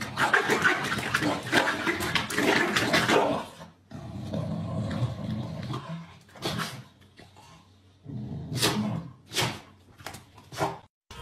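Corgis making noisy dog sounds. A dense, rough stretch fills the first three and a half seconds, it goes quieter after that, and a few short, sharp sounds come near the end.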